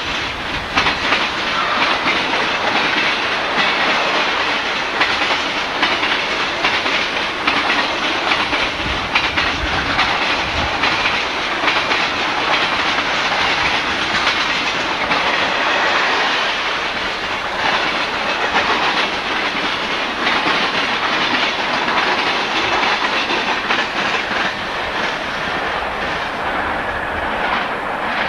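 Freight train of boxcars and tank cars rolling past close by, its wheels and cars clattering steadily.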